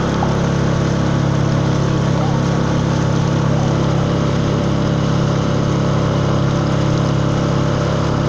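A 4 hp Tohatsu four-stroke single-cylinder outboard motor running steadily at cruising speed, pushing a square-back canoe along at an unchanging pitch.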